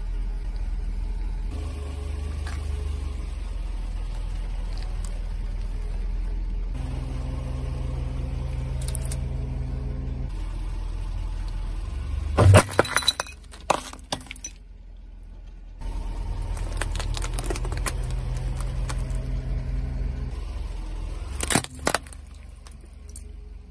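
Car engine running low and steady as the car rolls slowly, with two loud crunching cracks, one about halfway through and a shorter one near the end, as objects are crushed under its tyres.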